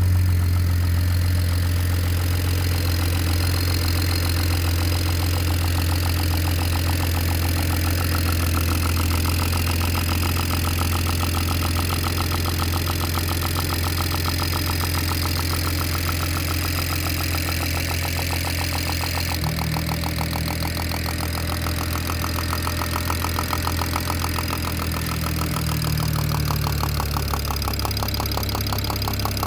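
BMW N54 twin-turbo inline-six idling with a rapid, steady knocking tick over the engine hum. The owner suspects the knock comes from the top end but is not sure. The engine's tone shifts slightly about two-thirds of the way through.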